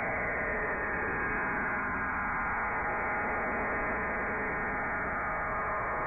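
Shortwave radio receiver audio from a web-SDR tuned near 5.34 MHz: steady static hiss, with a faint falling whistle under the noise a second or two in.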